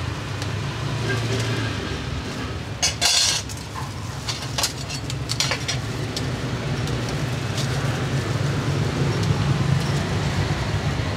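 Metal utensils and bowls clinking a few times about three to five seconds in, over a steady low rumble of street traffic.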